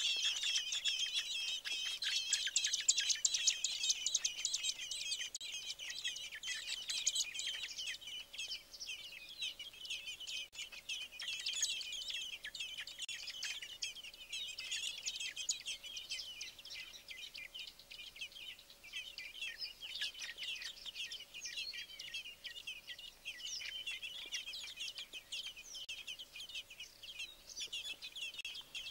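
Fieldfare nestlings begging for food: a dense chorus of high, thin cheeping calls. It is most intense over the first several seconds, then thins into scattered bouts that keep on.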